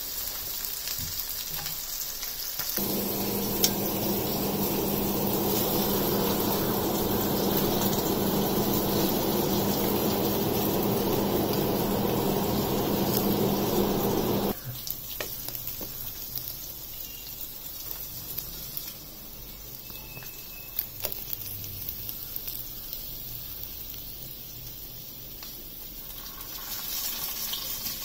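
Fish frying in oil on a tawa, sizzling. A few seconds in, a louder steady rushing noise with a low hum sets in, then cuts off suddenly about halfway through. Only faint room sound with a few light clicks follows.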